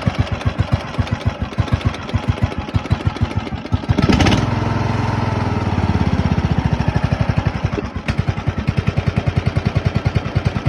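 Cub Cadet zero-turn mower engine idling with slow, even firing pulses, revving up suddenly about four seconds in, holding the higher speed, then dropping back to idle near the end. It runs smoothly after a carburettor adjustment and the tightening of a loose engine bolt that had made it shake.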